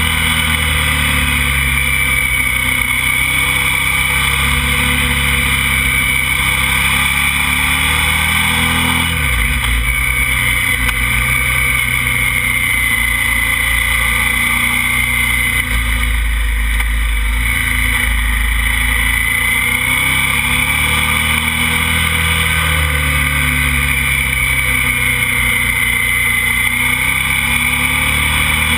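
KTM motorcycle engine running while riding up a winding mountain road, its pitch falling and rising several times as the throttle opens and closes through the bends, with a sharp drop about nine seconds in. A steady rush of wind and road noise lies under the engine.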